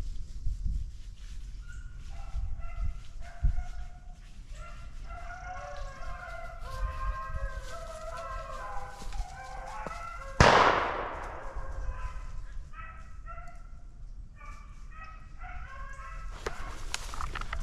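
A pack of beagles baying on a rabbit's trail, several hounds calling over one another in broken bawls. A single gunshot cracks about ten seconds in and echoes away.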